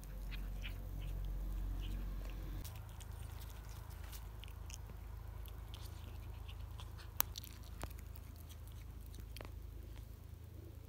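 Domestic tabby cat chewing on a pigeon carcass: irregular small clicks and crunches, with one sharp crack about seven seconds in.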